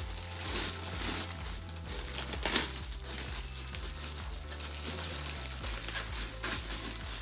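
Cellophane wrapping crinkling in irregular bursts as it is handled and pulled off, the loudest rustle about two and a half seconds in. Steady background music plays underneath.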